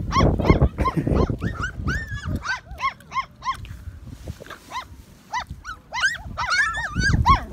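Several young puppies yelping and whining, many short high cries that rise and fall in quick runs. Footsteps crunch on gravel in the first second or so and again near the end.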